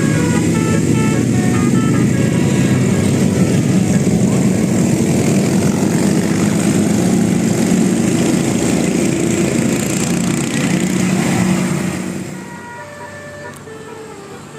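A bus engine runs loudly while a Basuri "telolet" multi-tone bus horn plays a stepped tune. The engine noise drops away about twelve seconds in, leaving the horn tune clearer.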